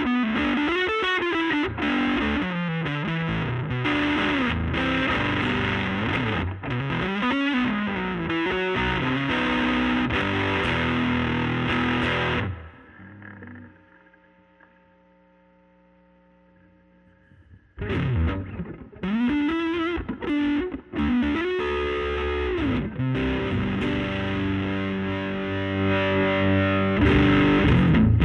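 Overdriven electric guitar, a Reverend PA-1 with P90 pickups, through the gain channel of a Laney Lionheart L5 Studio valve amp and a 15-inch Jensen Alnico speaker, playing riffs with pitch bends. The playing breaks off about twelve seconds in and fades to a few seconds of near silence, then starts again.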